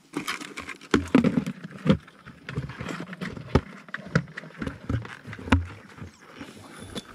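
Rubber waders rubbing and scuffing as someone moves and crouches on grass and mud, with irregular sharp knocks and thumps, the loudest about a second in and again around five and a half seconds in.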